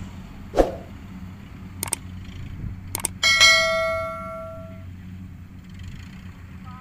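Subscribe-button animation sound effect: a whoosh, two sharp clicks, then a bell ding that rings and fades over about a second and a half. Under it runs the steady low drone of a Kubota DC70 Plus combine harvester working in the field.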